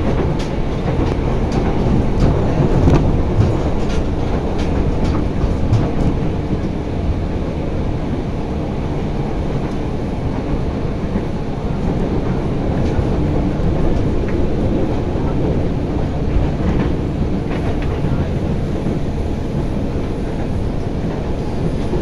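Inside a KRL commuter electric train running along the line: a steady low rumble of the carriage, with sharp clicks of the wheels over rail joints, most of them in the first several seconds.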